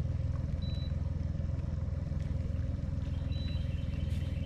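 Boat motor running steadily at low speed: a continuous low hum with a faint steady whine above it. A few short high chirps come in near the end.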